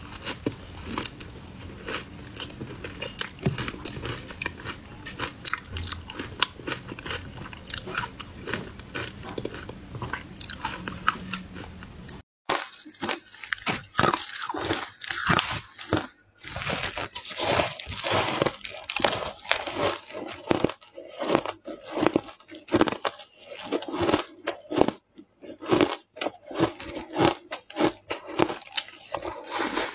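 Matcha-powdered ice being bitten and chewed close to the mouth: a dense, irregular run of sharp crunches. About twelve seconds in the sound changes abruptly to a brighter, crisper crunching as another eater takes over.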